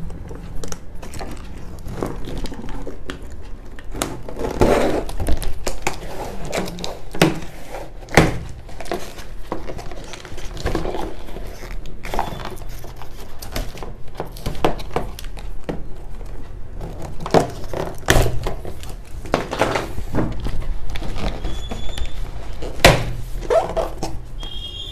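Cardboard printer box being cut open with a key: the key scraping and tearing through the packing tape, with knocks and rustles from the cardboard flaps, coming as a string of separate scrapes and thuds.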